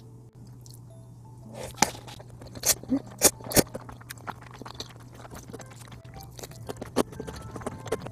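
Close-miked mouth sounds of a mouthful of fried chicken and ramen noodles being chewed: sharp wet clicks and smacks that start about a second and a half in and are loudest between two and four seconds, over quiet background music.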